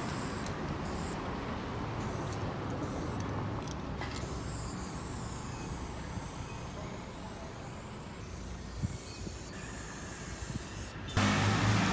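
Aerosol spray-paint can with a wide fat cap hissing, in several short bursts and then one longer spray of about four seconds, over a low rumble of street traffic. Music comes in near the end.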